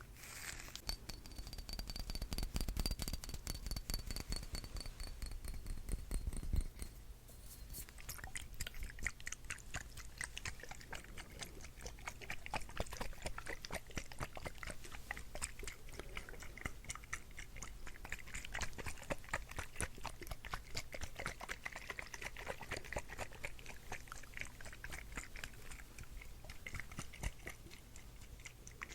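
Close-miked ASMR trigger sounds: a continuous run of rapid, dense crackling clicks right at the microphone.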